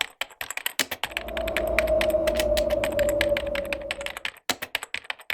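Typing on a computer keyboard: fast, irregular key clicks. A steady hum runs under the typing from about a second in until about four seconds.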